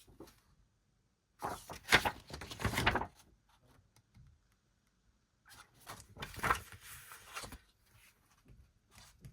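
Paper rustling and crinkling in two bursts, one about a second and a half in and another about five and a half seconds in, as a folded mini poster is handled.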